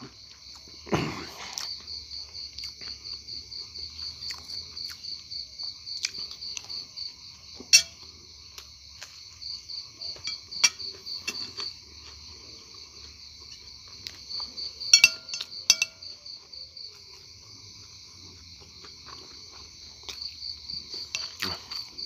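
A cricket chirping steadily in an even rhythm of about three chirps a second, dropping out for a few seconds about two-thirds through. A metal spoon clinks against a ceramic plate several times, louder than the chirping.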